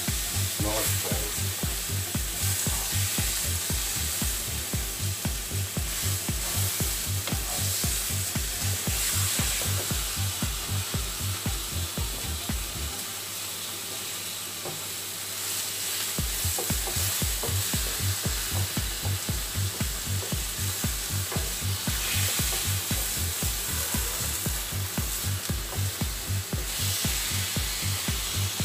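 Chicken fillets sizzling as they sear in a frying pan, stirred and turned with a wooden spatula. A steady low beat runs underneath and stops for a few seconds about halfway through.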